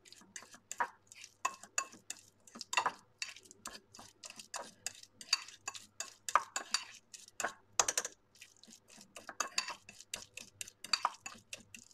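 Metal fork mashing boiled egg yolks with mustard in a ceramic bowl: the tines scrape and tap against the bowl in quick, irregular strokes.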